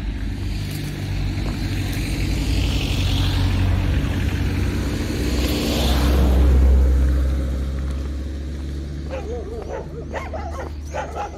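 Footsteps and rustling through dry reed stalks over a steady low rumble, with dogs starting to bark near the end.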